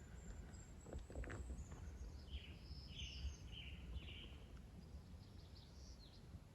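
Faint songbird calls: a run of about four short notes starting around two seconds in, then thinner, higher notes near the end, over a steady low rumble.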